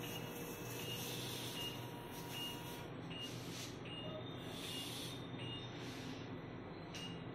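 Patient monitor pulse beep, a short high beep about every three-quarters of a second, over a low steady equipment hum, with a few bursts of hissing.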